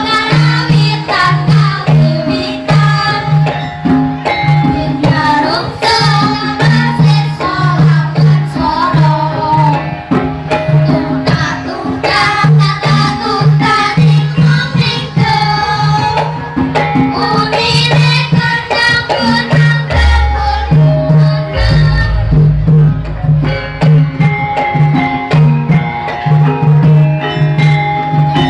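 Javanese gamelan (karawitan) ensemble playing, with hand-drum strokes keeping the rhythm under sustained metallophone notes and a gliding melody line. Two deep low notes sound about twenty seconds in.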